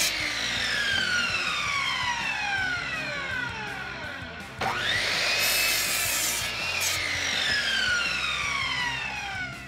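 Sliding compound miter saw cutting treated lumber twice. The first cut ends at the start and the blade winds down with a long falling whine. About halfway through, the motor starts again with a rising whine, cuts through the board for a couple of seconds, and then coasts down with a second falling whine.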